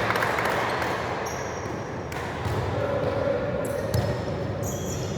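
A ball bouncing during an indoor court game, with a few sharp knocks and short high squeaks over a steady background noise.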